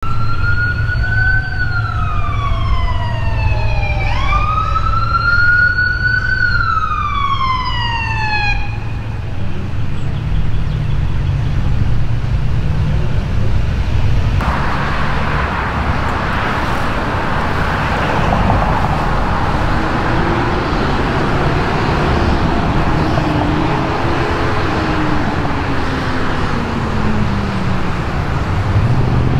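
Emergency vehicle siren wailing in rising and falling sweeps with a quick yelp, stopping about nine seconds in. Heavy emergency-vehicle engines and road noise follow as the ambulance and fire engine pull up, with a faint low rising-and-falling tone later.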